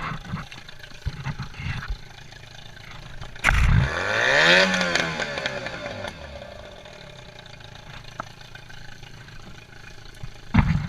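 Engine running low, then a sudden loud burst about three and a half seconds in as it is revved once, its pitch rising and falling back to a low run over about three seconds. A few clattering knocks near the start and end.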